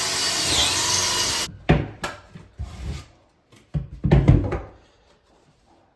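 A power tool runs steadily for about a second and a half, then stops. Several sharp wooden knocks and thumps follow as the shelving pieces are handled, the loudest a cluster a little past the middle.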